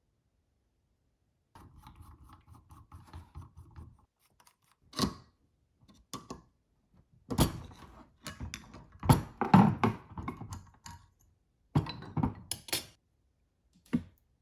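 Parts of a vintage grip-strength dynamometer being handled: a short stretch of faint rubbing, then a run of clicks, knocks and clunks.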